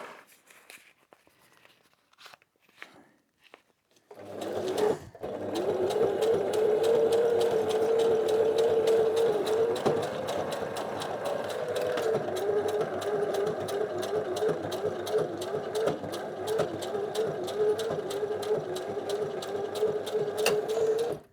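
Sewing machine stitching through backpack webbing in one long continuous run, a steady motor hum with rapid, even needle clatter. It starts about four seconds in, after a few quiet handling sounds, and stops abruptly at the end.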